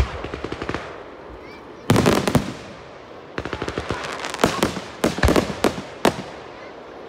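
Fireworks going off in quick volleys of sharp bangs and crackles. There is a loud cluster about two seconds in and a dense string of pops from about three and a half to six seconds, then a lull near the end.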